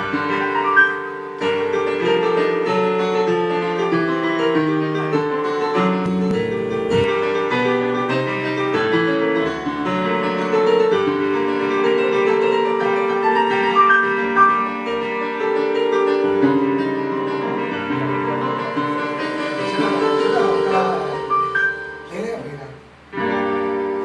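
Keyboard music with piano-like sustained chords and melody: the instrumental introduction of a song's backing track, ahead of the vocal.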